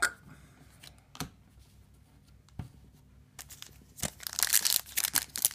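Foil Yu-Gi-Oh! booster pack wrapper crinkling loudly as it is handled and torn open, starting about four seconds in; before that only a couple of light taps from handling cards.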